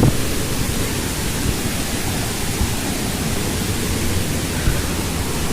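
Steady rushing of fast-flowing water from a waterfall and stream, a continuous hiss with a rumbling low end. A brief bump at the very start.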